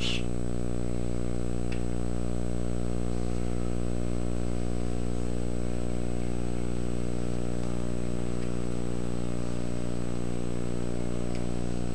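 Steady electrical hum, a buzz made of many evenly spaced overtones that holds constant throughout, with a faint click about two seconds in.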